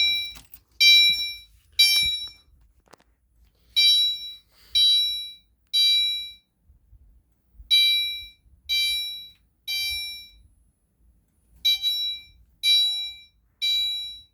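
Fire alarm sounder going off in the temporal code 3 evacuation pattern: three sharp, fading tones about a second apart, then a longer pause, repeated four times.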